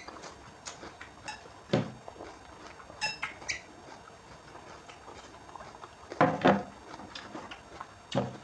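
Eating sounds of instant noodles with raw bean sprouts: chewing and crunching in a few short, sharp bursts, with the longest and loudest about six seconds in.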